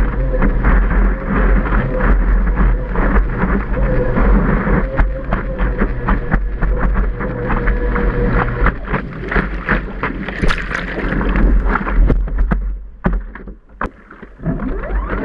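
Whitewater rushing and splashing around a surfboard riding a wave, with a steady whine from the board's Wave Jet electric jet drive that stops about nine seconds in. Sharp splashes follow, then the water noise drops away about thirteen seconds in.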